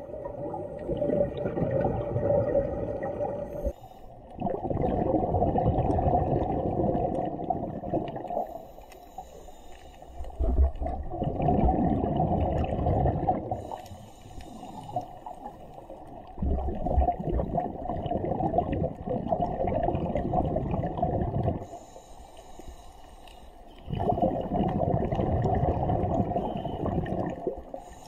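A diver breathing underwater through a scuba regulator: long rushes of exhaled bubbles burbling out every few seconds, with quieter spells between breaths.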